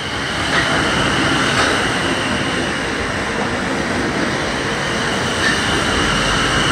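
South Western Railway Class 450 Desiro electric multiple unit passing close by: a steady rush of wheel and train noise with a steady high whine running through it, and a few faint clicks from the wheels.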